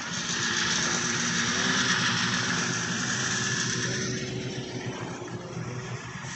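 Vintage snowmobile's two-stroke engine running steadily. It grows louder over the first two seconds and fades after about four.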